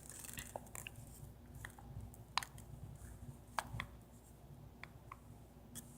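Faint handling noises: a dozen or so light, scattered clicks and taps from small items being picked up and moved, over a low room hum.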